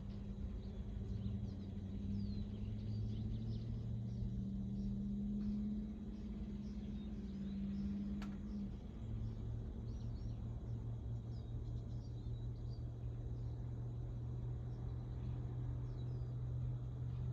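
Outdoor ambience: a steady low hum, like a motor running, that shifts down a little in pitch past halfway, with scattered faint bird chirps and one faint click about eight seconds in.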